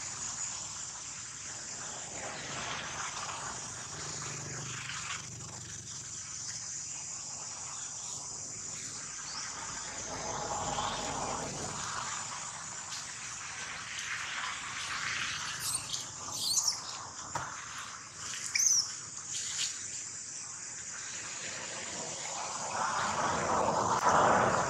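Insects buzzing in a steady high drone, with a few short, sharp high chirps and clicks about two-thirds of the way through. A rushing noise swells near the end.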